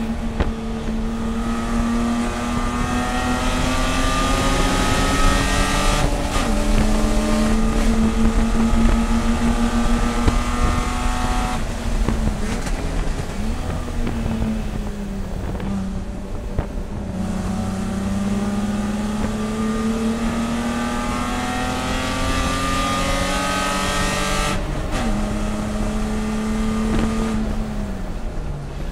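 BMW E30 race car's inline-six engine running under load, its pitch rising slowly through each gear, with several sudden pitch drops at gear changes and a quieter stretch midway where it comes off the throttle and blips down through the gears before pulling again.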